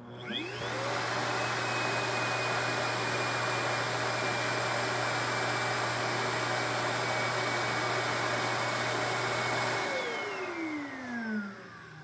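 Dreamebot D10 Plus auto-empty base's suction motor emptying the docked robot vacuum's dustbin. It spins up with a rising whine, runs steadily for about nine seconds, then winds down with a falling whine near the end.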